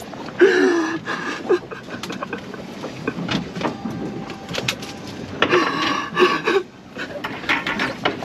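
A voice calling out twice, two short shouts about five seconds apart, over scattered knocks and clatter.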